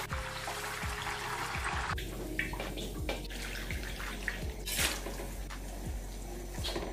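Hot oil ladled over a duck on a rack above a wok, sizzling and spattering; about two seconds in it gives way to hot water poured from a jug into a wok of oil and sauce, splashing, with a brief louder splash near the middle.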